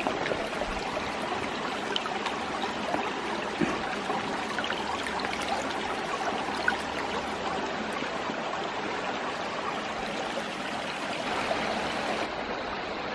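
Mountain stream babbling steadily over rocks, a continuous rushing murmur of water.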